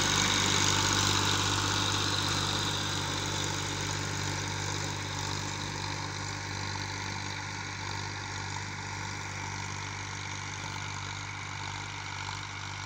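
Old tractor's diesel engine running steadily under load as it pulls a disc harrow through ploughed soil, fading gradually as the tractor moves away.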